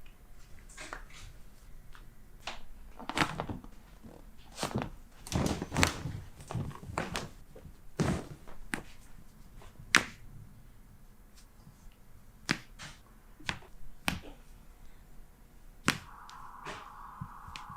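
Chiropractic adjustments: an irregular series of about a dozen sharp cracks and pops of joints being manipulated, some with a dull thud.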